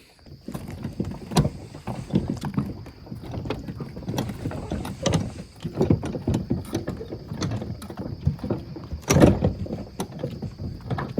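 Crickets chirping steadily in the night, under a string of irregular knocks, bumps and rustles. The loudest knock comes about nine seconds in.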